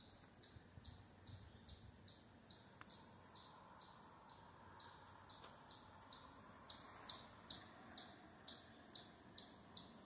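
Faint high chirp repeated evenly, about three times a second, a little louder in the second half: a small animal calling steadily in the woods.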